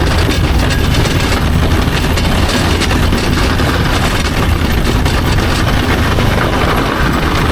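Side-by-side UTV engine running steadily, a continuous low drone.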